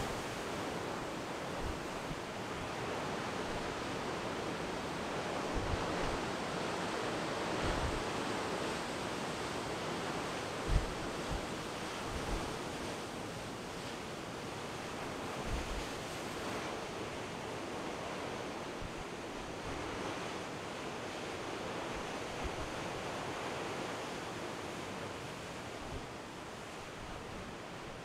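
Heavy storm surf in 20-foot seas breaking over a rocky shore: a steady rushing roar of breaking waves. Wind buffets the microphone in occasional low thumps, the strongest about ten seconds in.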